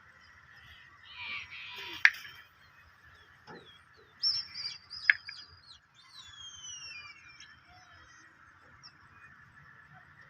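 Birds calling: a few short high chirps, then two descending whistled calls, with a couple of sharp clicks in between.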